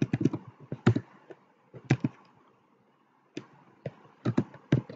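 Computer keyboard keys being typed: a handful of separate keystrokes in small clusters, with a pause of about a second in the middle.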